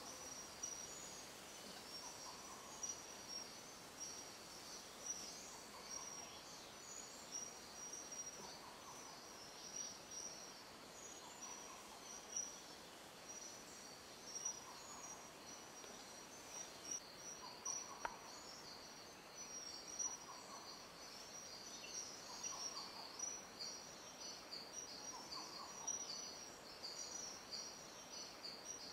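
Faint rainforest ambience: a steady high-pitched chorus of insects, pulsing rapidly, with a short lower call repeating about every two to three seconds.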